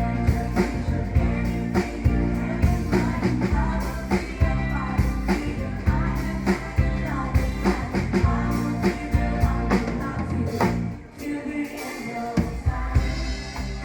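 Upbeat rock-pop music with a sung vocal, drums and guitar, and a steady beat; the bass and drums drop out briefly about eleven seconds in.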